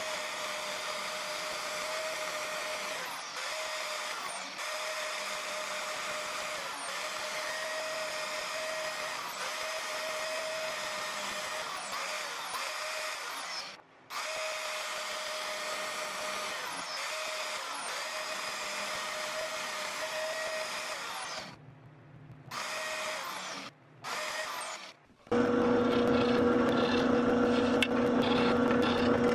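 Bandsaw cutting a wooden knife handle scale: a steady machine run with short breaks. About 25 seconds in, a drill press motor takes over, louder, with a steady hum.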